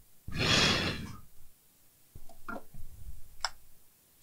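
A long, strong breath out near the microphone, then a few faint clicks and knocks.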